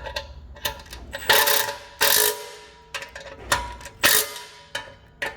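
Ratchet wrench clicking in short, irregular strokes as the bracket bolts on a drain-cleaning sink drum are tightened down snug.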